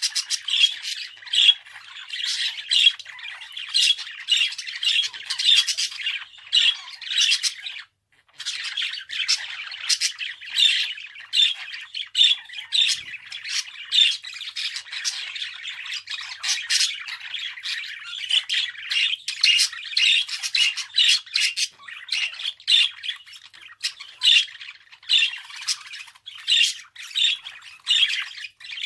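Budgerigar chattering and warbling without pause, a rapid run of short chirps and squawks, with a brief break about eight seconds in.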